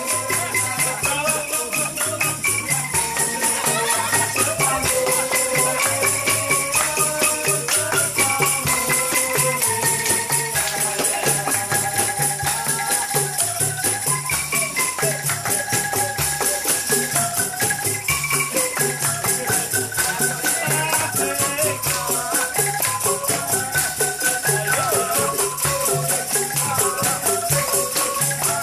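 Upbeat music with a fast, steady beat and a wavering melody over it.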